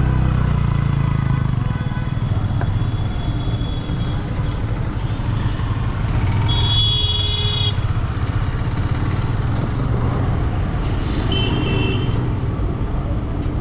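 Yamaha motorcycle being ridden off and along a road: a steady low rumble of engine and wind. Two short high-pitched tones cut in, about halfway through and again near the end.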